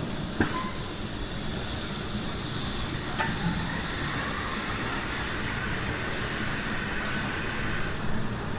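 Steady mechanical hiss and hum of machinery in a large shed. There is a sharp click about half a second in and another about three seconds in.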